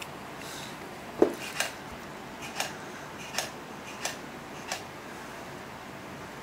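A series of light metal clicks and taps, about six over three and a half seconds, the first the loudest with a duller knock under it, as a dial indicator gauge is handled and fitted against a Bernina 217 industrial sewing machine's needle bar.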